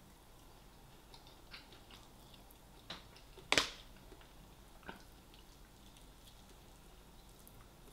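A person chewing fried chicken close to the microphone: wet mouth sounds with scattered small clicks, and one louder sharp sound about three and a half seconds in.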